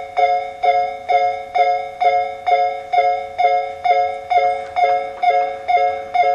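Japanese railway level crossing warning alarm: an electronic bell tone struck over and over, about two strikes a second, each ringing out briefly.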